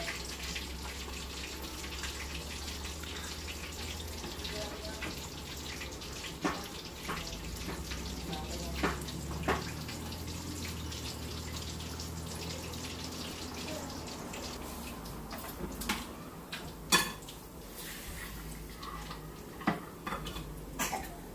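Steady hiss of food cooking on a stovetop, with scattered clinks and knocks of a utensil against cookware, the sharpest one late on.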